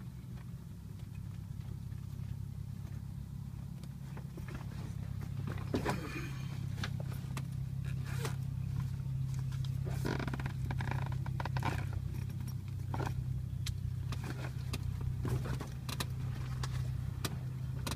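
Cessna 172's piston engine and propeller idling, heard inside the cabin as a steady low drone that grows a little louder over the first few seconds. Scattered clicks and short rustles of handling in the cockpit sit on top of it.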